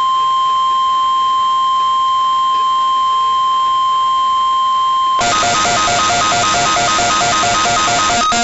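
NOAA Weather Radio 1050 Hz warning alarm tone during a weekly test: a loud, steady, unbroken beep. About five seconds in it cuts off abruptly and a harsher electronic alarm takes over, a rapid pulsing beep on two pitches.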